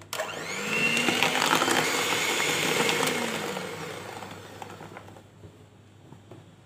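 Electric hand mixer switched on and beating ghee into a whipped egg-and-sugar batter, its beaters running in the bowl with a motor whine. It runs for about three seconds, then fades out.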